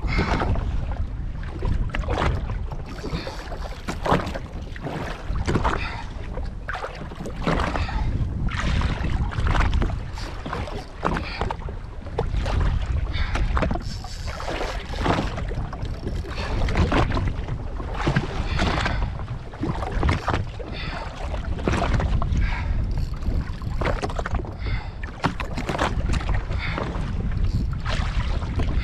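Wind buffeting the microphone in irregular gusts with a deep rumble, over water slapping against the hull of a drifting jet ski.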